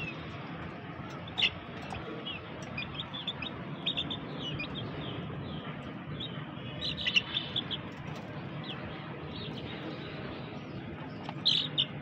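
Young native deshi chickens peeping: short, high chirps in scattered runs, busiest around three to four seconds in, again about seven seconds in, and near the end.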